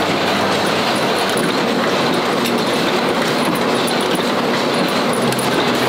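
Screw-making machines in a factory, running continuously: a loud, steady metallic clatter with a fast rattle of small ticks.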